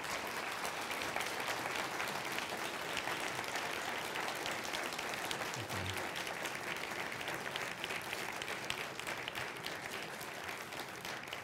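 Large audience applauding steadily, many hands clapping at once, easing off slightly near the end.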